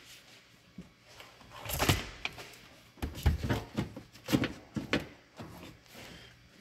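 Plastic car interior trim pieces being handled and pressed into place: an irregular string of knocks, clacks and rustles, the loudest about two seconds in.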